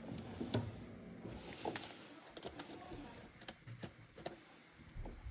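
Irregular light clicks and knocks, with a few duller thumps, from hands-on work on a gas furnace.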